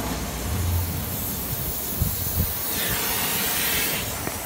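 Oxy-fuel gas torch hissing steadily as it cuts through a car's exhaust pipe to remove the resonator. The hiss grows louder and sharper for about a second and a half near the end.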